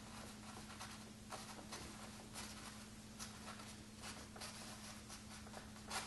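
Chinese ink brush dabbing and stroking on paper: faint, irregular brushy scratches, two or three a second, the strongest near the end, over a steady low electrical hum.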